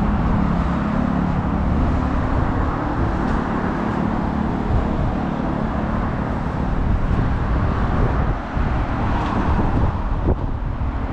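Steady road traffic noise: cars running past close by on a busy road.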